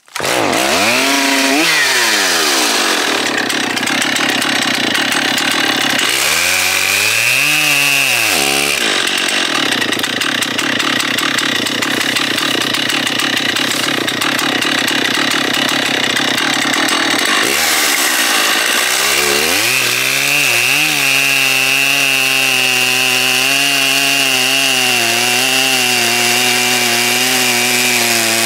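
Stihl 088 Magnum 120cc two-stroke chainsaw running at high revs and cutting into a big log. Its engine pitch dips and climbs back several times in the first twenty seconds, then holds lower and steadier in the cut for the rest.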